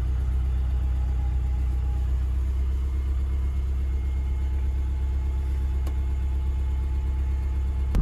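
Engine idling with a steady low rumble, heard from inside a pickup truck's cab.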